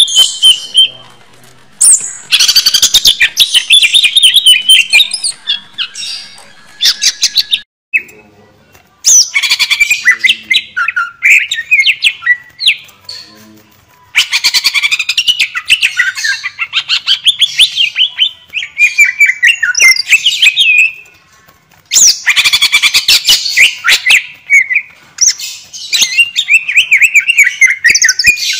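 Cucak ijo (greater green leafbird) singing: loud, rapid, varied song in long bouts of several seconds each, broken by short pauses.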